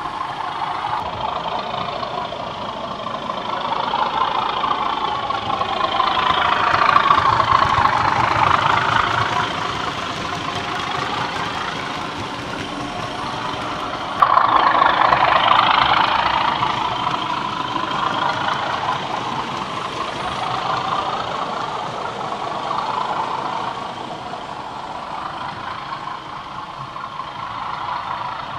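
Model diesel locomotive's DCC sound decoder playing a diesel engine sound through its small on-board speaker as the train runs, the engine note swelling and bending in pitch twice, with a sudden jump in loudness about halfway through.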